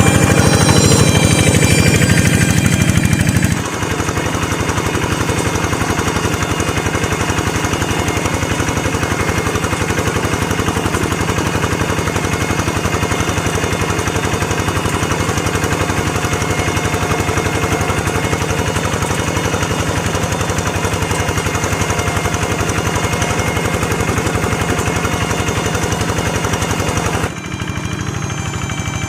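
Small engine of a hand tractor working a rice paddy, running with a fast, even chugging; it drops a little in level about three and a half seconds in and again near the end.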